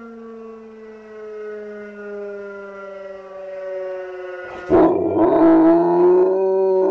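Fire siren wailing steadily, its pitch sinking slowly. About two-thirds of the way in, the dog breaks in suddenly with a loud, wavering howl, answering the siren.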